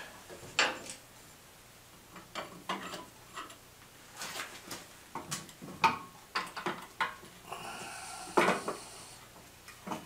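Scattered metallic clinks and knocks of a spoked front wheel's hub, spindle and spacers being fitted between a BSA C15S's front forks, with a short scraping sound about three-quarters of the way through. This is a trial fit of the new wheel to see whether it clears.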